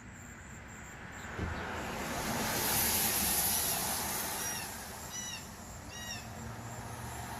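A vehicle passing on a wet road: a hiss that swells up and fades over a few seconds. As it fades, a bird calls three times in short arched notes, less than a second apart.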